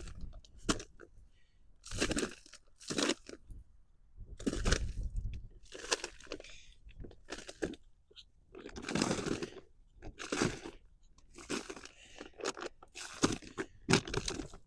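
Dry plant material and soil being handled by hand: irregular crunching and rustling in about a dozen separate bursts, as dead potato foliage and mulch are rummaged through and pulled up.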